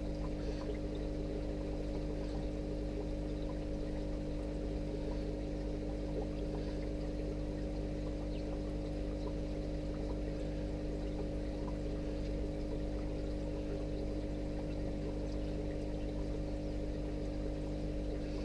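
Aquarium equipment running with a steady electric hum, with water trickling and bubbling over it.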